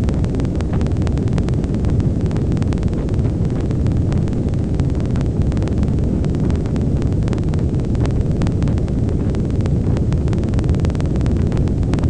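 Cassini's RPWS plasma wave instrument picking up the spacecraft's main engine burn, played as audio: a steady low rumble with a dense rattle over it. The rattle is an artifact of running short sample bursts together. The rumble is the real signal, which may come from plasma turbulence in the exhaust plume or from onboard mechanisms.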